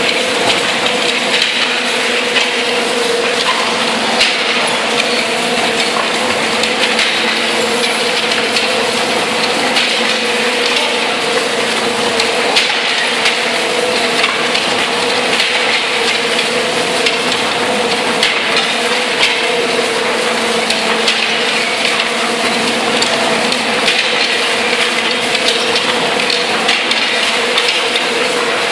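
Tunnel boring machine cutterhead turning and grinding through the shaft wall as it breaks through: a steady machine hum under continuous grinding and crushing of soil and concrete, with scattered small cracks.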